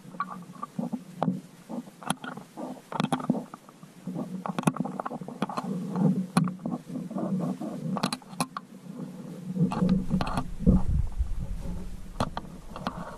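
Muffled underwater sound picked up through a submerged GoPro's housing: a dull low rumble with irregular clicks and knocks as the magnet and its rope move in the well water. The deep rumble gets heavier about ten seconds in.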